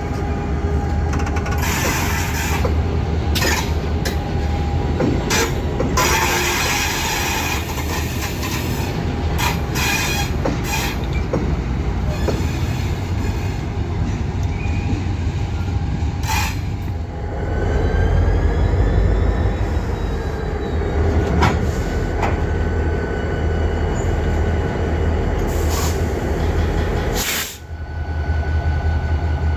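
Freight train rolling past, with a steady low rumble and repeated clacks and knocks from the wheels and cars. A wavering wheel squeal rises and falls a little past the middle, and the sound drops out briefly near the end.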